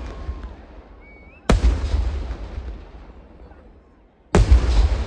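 Kerala temple-festival fireworks (vedikkettu) going off: a heavy boom about a second and a half in that rumbles away over two seconds, then another boom near the end followed by a couple of quick cracks.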